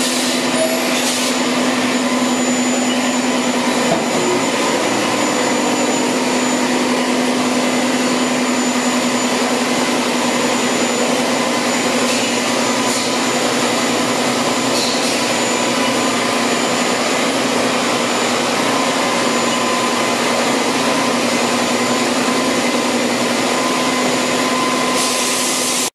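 Haas VF2TR five-axis CNC machining center running a cut with coolant spraying inside its enclosure: a steady hiss with a low hum and a faint high whine underneath. It cuts off abruptly at the end.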